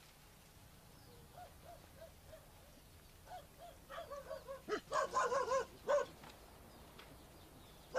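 A dog giving short high yips, several a second, that build into a quick run of louder barks around five to six seconds in.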